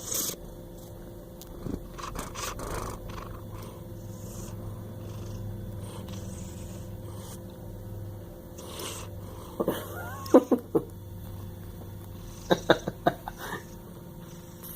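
Sleeping Bengal cat snoring with a low, steady rumble. Near the end come a couple of clusters of short, high, gliding squeaky calls.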